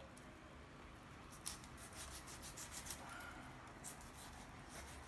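Faint scraping strokes of a kitchen knife slicing through half-thawed tuna, a few short strokes starting about a second and a half in.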